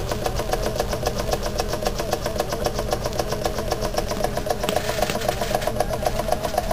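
Jensen 75 model steam engine running steadily on a methylated-spirits vaporising burner, giving a fast, even beat. A brief hiss comes in about five seconds in.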